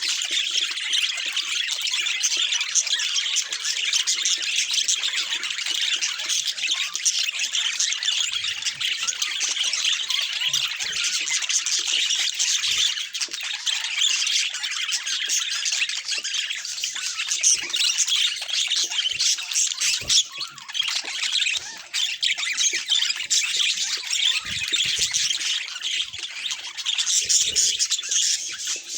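A flock of budgerigars chattering and chirping without a break, many birds calling at once.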